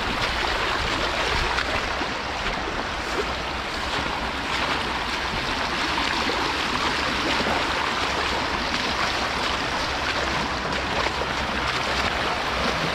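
Fast river current rushing past: a steady, even hiss of flowing water.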